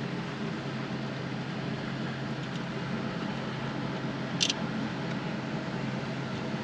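A steady machine hum, with a single short high click about four and a half seconds in.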